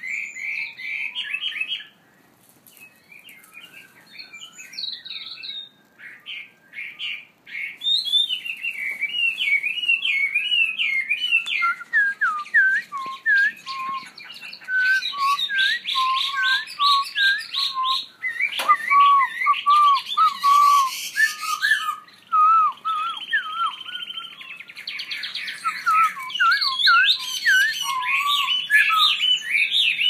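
Several caged songbirds singing at once: varied whistled phrases that slide up and down in pitch, typical of a hwamei and a laughing thrush, mixed with stretches of fast trilled notes from canaries.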